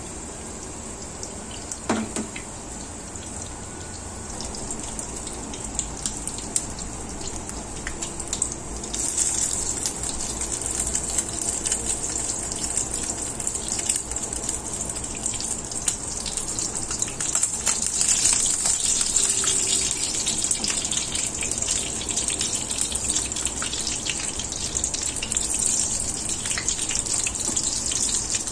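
Spring rolls shallow-frying in hot oil in a pan: a steady sizzle that grows louder about nine seconds in, with occasional light clicks of tongs against the pan as the rolls are turned.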